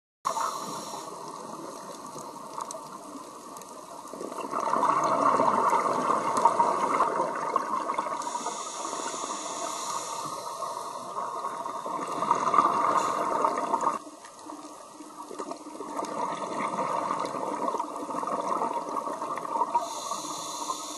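Underwater sound of a scuba diver breathing on a regulator: surges of exhaled bubbles every few seconds, with a high hiss of inhalation twice.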